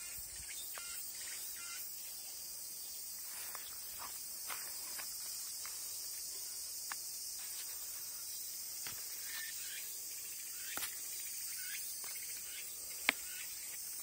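Summer cicadas singing, a steady high-pitched drone, with scattered sharp clicks and snaps of leaves being picked by hand, the loudest one near the end.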